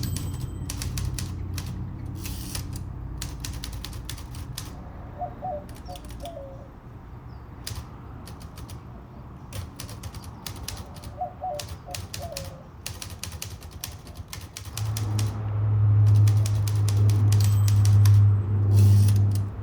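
Smith-Corona Skyriter portable manual typewriter being typed on: sharp key strikes in irregular quick runs with short pauses. A low steady hum comes in about three-quarters of the way through and is the loudest thing there.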